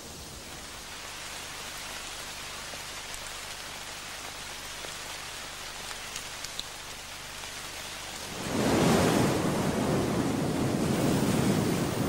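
Soft, steady hiss of wind, then about eight and a half seconds in a much louder, deeper rushing noise sets in and holds steady.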